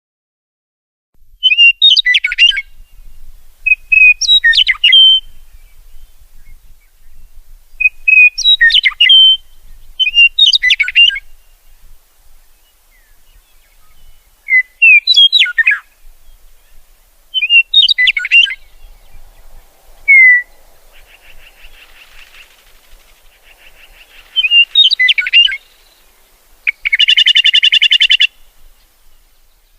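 A songbird singing short, varied whistled phrases about every two to three seconds, starting after a second of silence. Near the end comes a longer buzzy trill.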